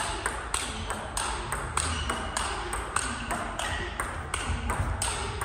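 Table tennis ball in a fast rally, clicking off bat and table in quick, even strikes about three a second and echoing in a large sports hall.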